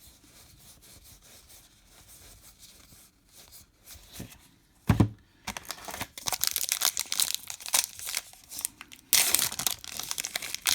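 Wrapper of a baseball card pack being torn open and crinkled, after a single soft thump about five seconds in.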